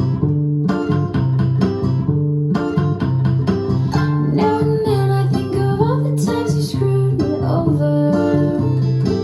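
Guitar-led recorded music played back through T+A Pulsar hi-fi loudspeakers: a repeating plucked guitar figure over strong steady bass notes, with a melody line that glides in pitch through the middle.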